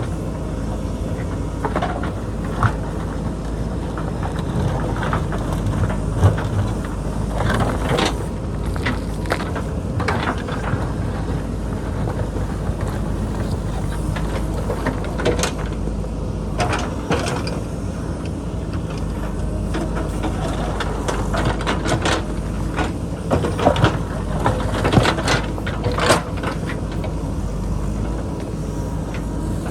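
JCB backhoe loader's diesel engine running steadily under load as it digs, with frequent sharp clanks and knocks of the steel bucket striking and scraping rock and boulders.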